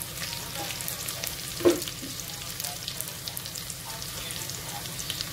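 Chopped garlic sizzling and crackling steadily in hot oil in a metal pot, frying on its way to golden brown. One brief louder sound about a second and a half in.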